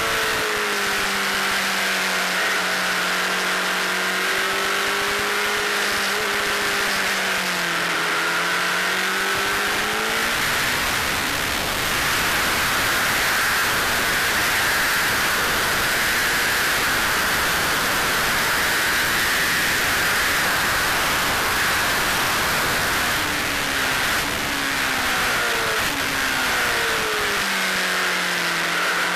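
Honda CBR600RR's inline-four engine running at speed on a race track, under heavy wind rush on the bike-mounted microphone. The engine note drops and climbs again about a third of the way in, then the wind rush drowns it for most of the rest, and the engine note comes back near the end.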